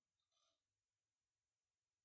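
Near silence, with one very faint, brief rustle about half a second in.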